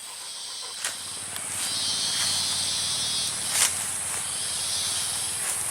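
Insects calling: a steady high-pitched drone, with a lower, rapidly pulsing trill that comes and goes in stretches of a second or two. A few sharp clicks sound over it.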